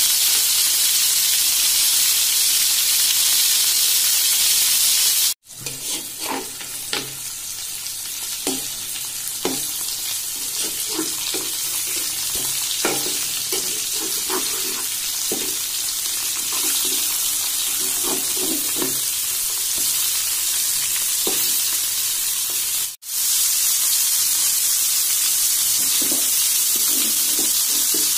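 Rohu fish steaks sizzling steadily as they fry in hot oil in an aluminium kadai. Through the middle stretch a metal spatula knocks and scrapes against the pan as the pieces are turned. The hiss drops out for an instant twice, at cuts.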